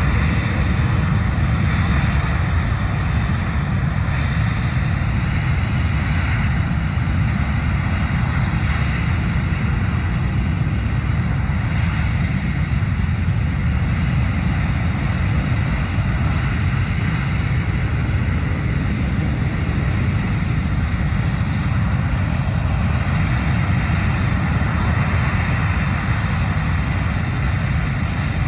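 Rocket engine firing on a horizontal test stand: a loud, steady, deep rushing noise that holds without a break.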